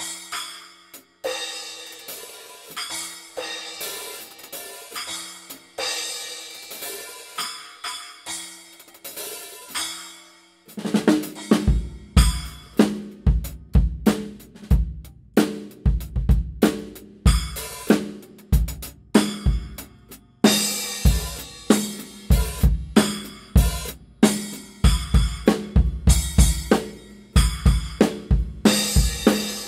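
Sabian B8 and B8 Pro cymbals (14-inch hi-hat and thin crash, 8- and 10-inch splashes) struck alone and left ringing. About eleven seconds in, the Mapex kit's bass drum and snare join in a steady drum groove with the cymbals.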